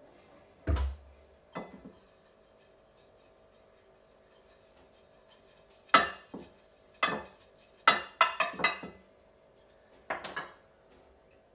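Kitchen clatter as a ceramic baking dish is oiled: a thump about a second in as the oil bottle is set down on the wooden worktop, then sharp knocks and clinks of a utensil against the dish while the oil is spread around it, in clusters from about halfway through.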